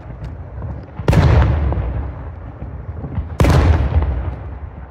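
Fireworks shells bursting: two loud bangs about two and a half seconds apart, each followed by a long rumbling echo.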